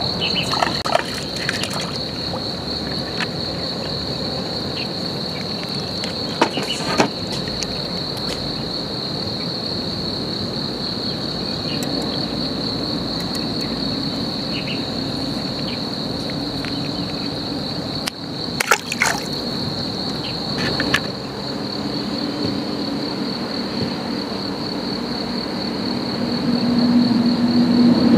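Insects trilling steadily in a high, evenly pulsing tone, with a few short clicks and light water sounds as a caught fish is handled on the line. A low hum grows louder near the end.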